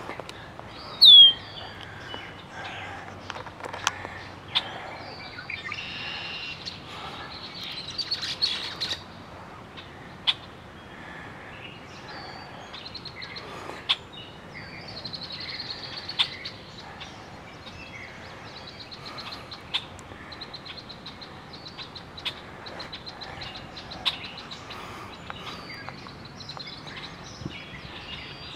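Songbirds singing around a pond: assorted high chirps, whistles and trills. A loud down-slurred whistle comes about a second in, and a fast trill repeats several times in the second half.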